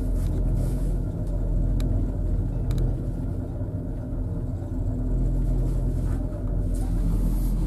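Steady low rumble and hum inside a two-seat fixed-grip gondola cabin (Trojer, IMES cabin) travelling along its haul rope, with a couple of faint clicks about two seconds in.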